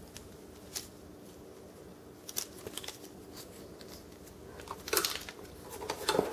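A plastic measuring spoon scooping baking soda and scraping across the top edge of a cardboard box to level it off. There are a few light clicks and taps, and the loudest scrapes come about five and six seconds in.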